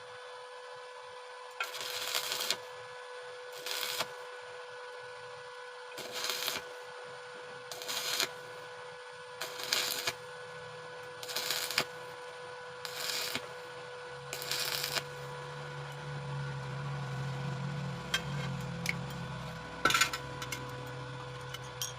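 Stick welding of very thin sheet metal with a 2.6 mm electrode, too thick for the job: short arc bursts of about half a second, struck roughly every two seconds as a stitch of intermittent welds, over a steady hum. A lower drone joins about two-thirds of the way through.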